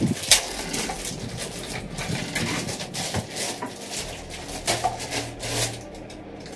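Plastic wrapping crinkling and rustling in irregular crackles as it is handled and pulled off a UPS unit, with a sharper crackle about a third of a second in.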